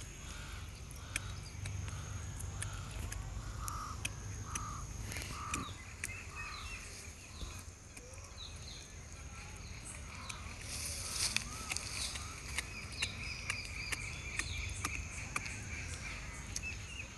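A puppy tearing and chewing at a dead chicken's carcass and feathers: scattered sharp clicks and crunches, with a louder rustle of feathers about eleven seconds in. Behind it, a run of short repeated calls, one or two a second, goes on through the first six seconds.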